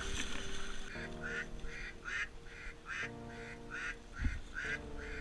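Rapid, evenly spaced duck quacks, about three a second, starting about a second in, over background music.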